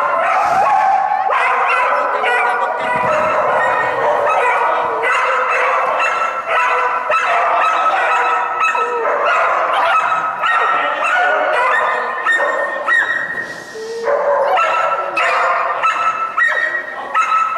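Dog yelping and barking almost without pause in high-pitched, squealing calls, excited while running an agility course.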